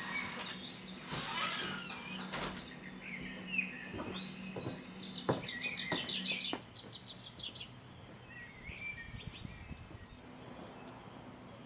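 Small birds chirping and singing, with a short repeated trill about five to six seconds in, over a faint steady low hum and a few light clicks.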